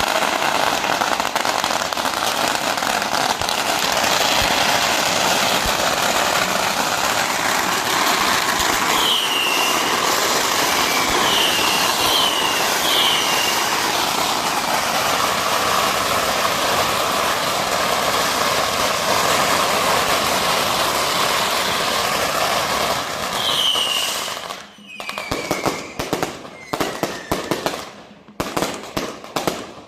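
A firecracker wall being set off as a salute: a dense, unbroken crackle of firecrackers for about 24 seconds, with a few short falling whistles mixed in. Near the end it thins out into separate clusters of bangs.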